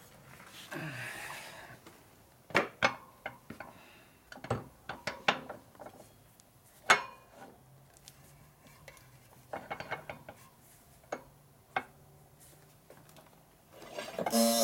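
Scattered sharp metal clinks and knocks from a spoked motorcycle front wheel and its axle being handled and set up under a hydraulic shop press.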